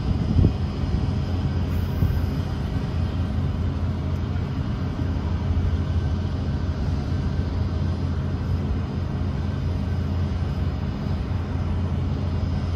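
A boat motor running steadily at low speed, a constant low hum.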